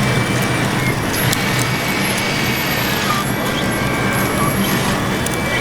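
Large-scale RC construction models running: a steady low hum with a thin, steady high whine over it and a few faint clicks.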